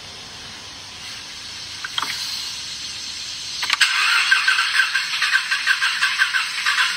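A 2020 Shelby GT350's 5.2-litre flat-plane-crank V8 starting roughly, heard through a phone's small tinny speaker. A click comes about two seconds in. Near the middle a sharp click is followed by a rapid, even sputtering rattle. It is a sputtering start, which the owner first put down to the fuel pump.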